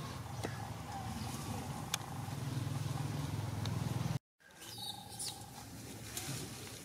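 A low, steady mechanical hum, like an engine running nearby, with a few faint clicks over it. It cuts out completely for a moment about four seconds in and comes back quieter.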